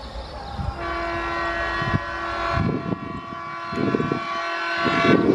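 Indian Railways WDG-3A diesel locomotive's air horn sounding one long blast of about four seconds, starting about a second in, over the rhythmic chugging of the twin diesel engines, which grows louder near the end as the freight train approaches.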